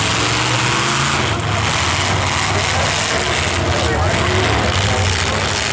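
Loud engines of demolition derby cars running, with voices mixed in.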